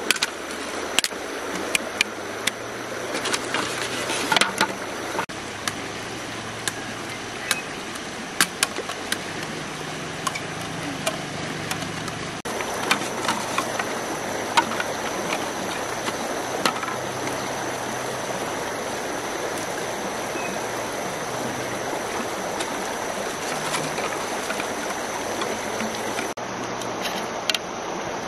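Steady rush of a flowing river, with sharp knocks of a machete chopping green bamboo scattered through the first half and occasional clicks of bamboo pieces being handled later.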